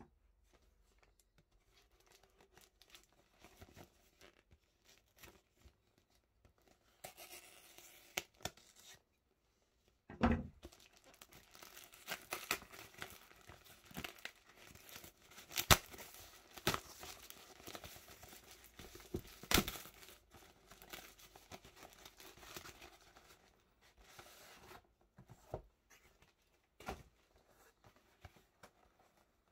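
Corrugated-paper mailer wrapped in plastic packing tape being torn open by hand: tape ripping and paper crinkling in uneven spells with sharp snaps. It starts lightly about seven seconds in, is busiest from about ten to twenty-four seconds, and thins to a few handling sounds near the end.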